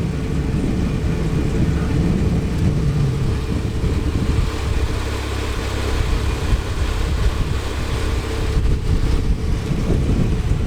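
Wind buffeting the microphone: a heavy, steady low rumble.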